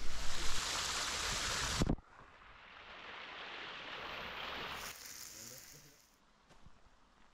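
Water splashing and spilling over cupped hands from a small rocky cascade. It follows a louder rushing noise that cuts off suddenly about two seconds in.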